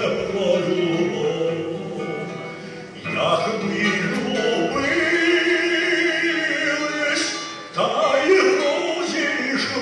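A man singing a Ukrainian song solo, holding long notes in three phrases, with breaths about three and eight seconds in.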